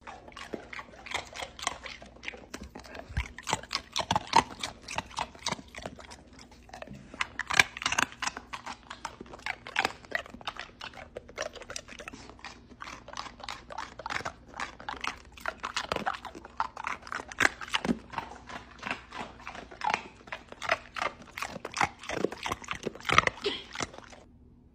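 A Doberman making a long run of quick, irregular clicking and smacking sounds with its mouth, stopping shortly before the end.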